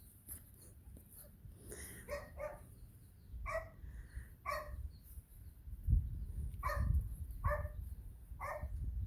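Puppy barking in short, high yaps, about seven over several seconds, some in quick pairs.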